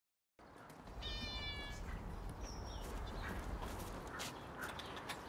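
A cat meowing once, about a second in, a short call held on one pitch, over a steady low background rumble.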